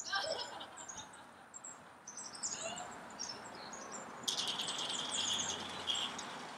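Small birds chirping in short, high calls throughout. About four seconds in, a dense buzzing whine lasts nearly two seconds as the robot dog's large quarter-scale hobby servo motors lift it from a crouch to standing.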